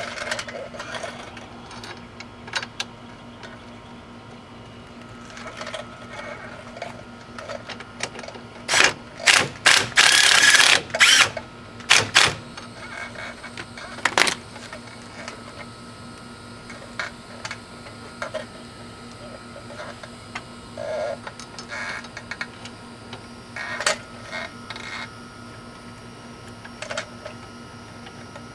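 Ratchet wrench running the wheel hub's mounting bolts in, not yet tightened: scattered clicks, with a run of loud, rapid ratcheting bursts about nine to twelve seconds in.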